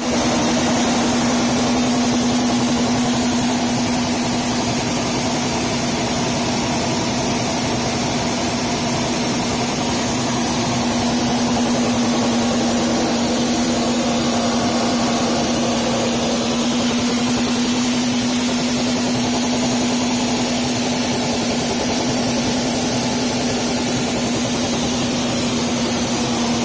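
Steady cockpit noise inside a BAE Hawk T1 jet trainer cruising at high altitude: a constant rushing hiss with one unchanging low hum underneath.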